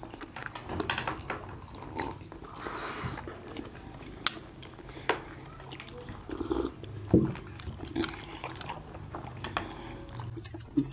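People eating steamed momos: wet chewing and mouth sounds, with scattered sharp clicks of chopsticks against steel plates and a sip of drink from a steel tumbler.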